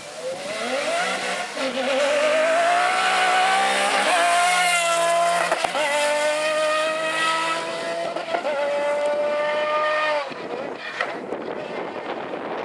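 Off-road rally car's engine running at high revs under full throttle, its pitch climbing over the first two seconds, then held high with brief dips at gear changes around four and six seconds in. The engine note cuts off about ten seconds in, leaving a rough noisy rush.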